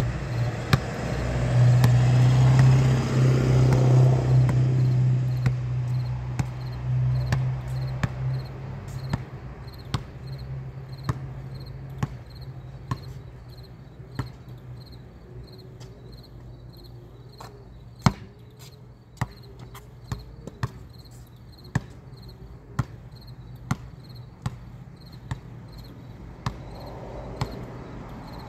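Basketball bouncing on a concrete court, sharp knocks about once a second. A vehicle's engine hums loudly at first and fades out by about eight seconds in, over faint steady cricket chirping.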